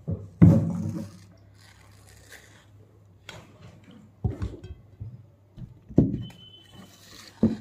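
A knife peeling and slicing a ripe mango by hand over a plate, with four dull knocks of fruit and knife handled against the plate and table, the first the loudest.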